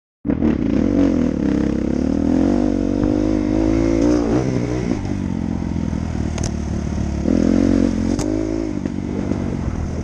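Dirt bike engine running while ridden along a trail, revving up and easing off in two surges, its pitch rising and falling over a steady low rumble. Two sharp clicks come in the second half.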